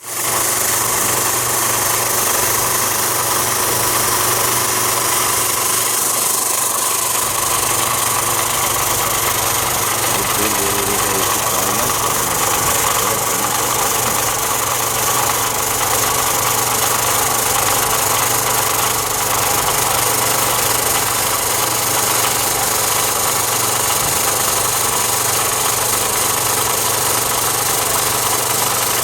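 Automatic electric sanding machine running steadily: a constant motor hum under a loud, even high-pitched hiss.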